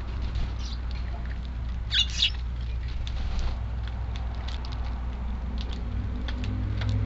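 Eurasian tree sparrows pecking and hopping with small ticks, and a short burst of high chirps about two seconds in, over a steady low rumble of strong wind on the microphone.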